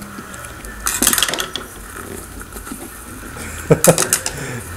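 Knife blade scraping and tapping along the top of a trading-card box as it cuts the seal sticker: a burst of scratching about a second in and a few sharp clicks near the end.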